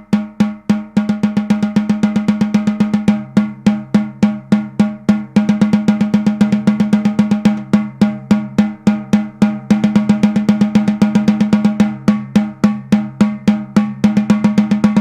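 Snare drum played with sticks, with the snares apparently off so the head rings with a clear tone. The player alternates a bar of evenly spaced single strokes with a bar of double strokes at twice the rate, played with the same wrist motion, two strokes per movement, in a double stroke roll exercise.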